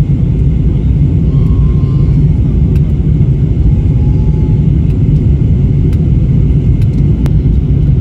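Steady low rumble of an airliner cabin in flight: jet engine and airflow noise heard from inside the cabin.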